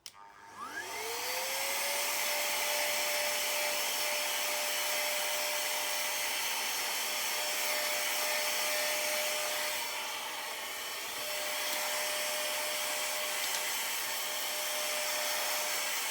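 Handheld vacuum cleaner switching on. Its motor whine rises to a steady pitch within about two seconds, then it runs steadily with a strong rushing hiss, dipping slightly for a moment about two-thirds of the way through.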